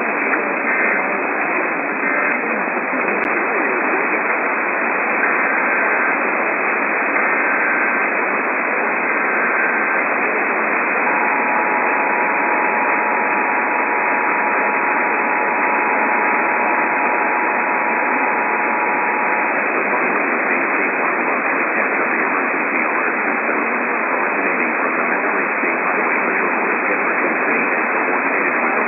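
Weak radio reception buried in loud static. Faint Emergency Alert System digital header bursts come through in the first ten seconds. Around eleven seconds in, the steady two-tone EAS attention signal sounds for about eight seconds, then only static remains.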